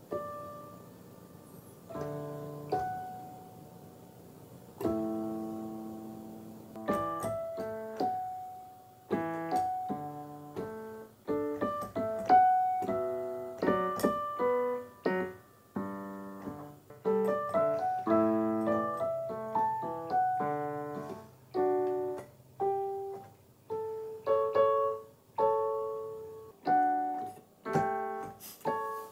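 Digital piano played by a beginner: a few single notes ringing out and fading at first, then from about seven seconds in a slow, steady run of melody notes and chords with both hands.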